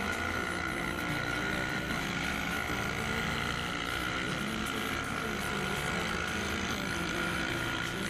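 Quad bike (ATV) engine running under throttle while riding, its note wavering slightly, with wind rushing over the helmet-mounted camera.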